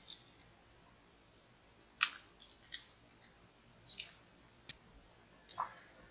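A few short, separate scrapes and clicks as the replacement phone rear glass panel and its packaging are handled, with one sharp click about halfway through.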